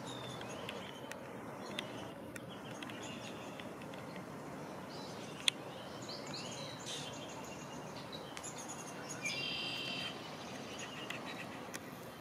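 Small birds chirping and trilling from the reeds over a steady low hiss of outdoor background noise, with a single sharp click about five and a half seconds in and a louder buzzy call around nine seconds in.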